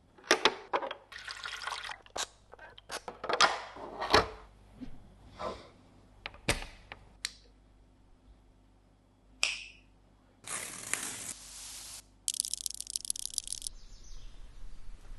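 Unboxed parts of an Auk Mini indoor garden being handled, with a run of sharp clicks and knocks. About ten seconds in comes a few seconds of water pouring.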